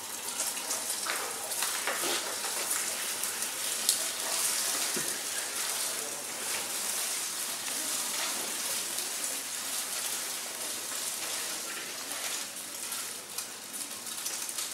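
Egg sizzling in a hot frying pan as it is stirred with a wooden spatula: a steady crackling hiss, with one sharp click about four seconds in.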